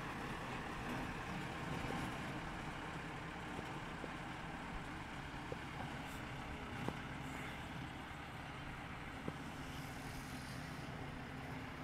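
Steady engine noise with a few faint knocks.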